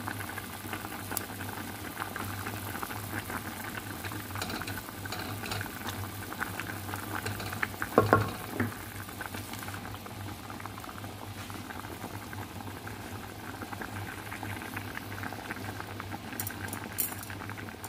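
Pot of Korean ramen soup boiling, a steady bubbling with many small pops, over a low steady hum. A single sharp knock about eight seconds in.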